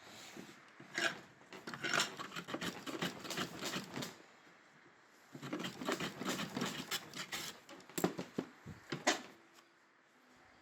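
Hand plane taking strokes along a small wooden blank: two stretches of rough, scratchy shaving noise, then a couple of sharp knocks near the end.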